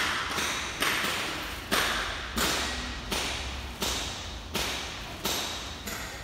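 A steady series of sharp knocks, about one every 0.7 seconds, each ringing on briefly as in a large hall, over a low steady hum.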